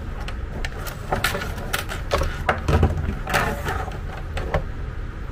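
Coiled cables and plastic remote handsets being handled on a desk: irregular clicks, knocks and rustles over a low steady hum.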